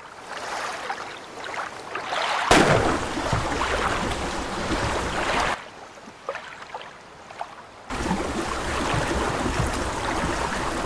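Kayaks on a lake: water splashing and rushing from paddling, with wind rumbling on the microphone. It drops quieter for about two seconds past the middle, then comes back.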